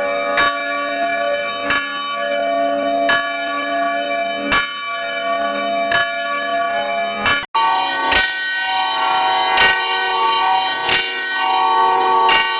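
A church bell tolling, one stroke about every second and a half, each ringing on into the next. About seven and a half seconds in it cuts off for a moment, and a different bell recording starts, tolling at the same pace.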